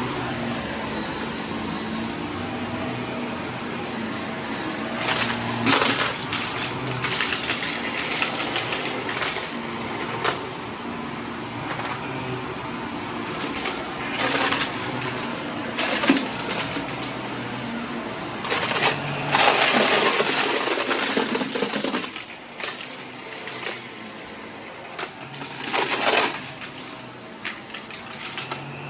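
Vacuum cleaner running while it sucks up scattered debris, with repeated loud rattling and crackling bursts as pieces go up the nozzle. The motor hum drops lower about two-thirds of the way through while the rattles continue.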